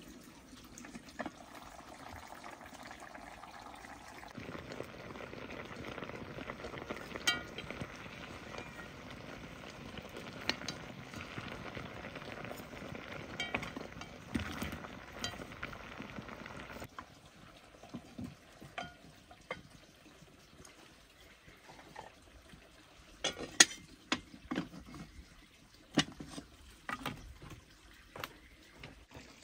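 Steady bubbling, sloshing water sounds, then an abrupt change a little past halfway to a quieter stretch of scattered sharp knocks and clicks.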